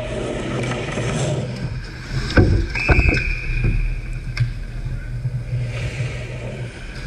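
Ice hockey play at the net: a cluster of sharp knocks from puck, sticks and skates around the goal, then a referee's whistle blowing one steady note for about a second, stopping play, over the scrape and hiss of skates on ice.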